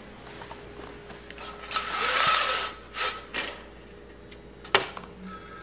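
A few short noisy bursts, the loudest lasting about a second, then a sharp click; near the end a telephone starts ringing.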